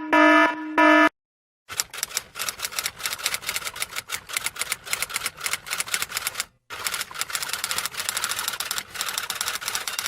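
Typewriter sound effect: a fast, steady clatter of key strikes, with one short pause partway through. It is preceded by the tail of a pulsing buzzer-like tone that cuts off about a second in.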